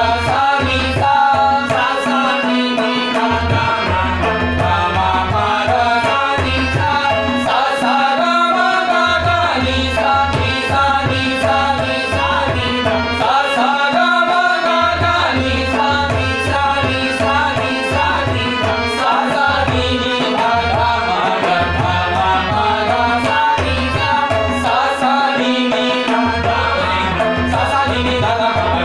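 Male vocalists singing a chhota khayal in Raag Khamaj, pitched in C sharp, accompanied by a harmonium's held notes and a tabla. The tabla's deep bass strokes come and go under the voices.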